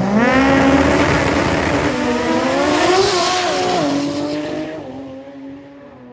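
Drag race cars launching off the starting line and accelerating hard down the strip: engine pitch climbs sharply at the launch, rises and drops again with the gear changes, then fades as the cars pull away.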